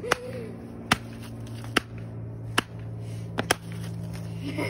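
A hammer striking a paper workbook lying on brick pavers in sharp, repeated hits, about one a second. There are six in all, the last two close together.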